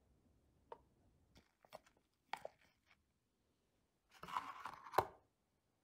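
Thin clear plastic kit tray being handled as the pancakes are popped out of its moulds: a few light clicks and crackles, then about a second of louder crinkling about four seconds in, ending in a sharp tap.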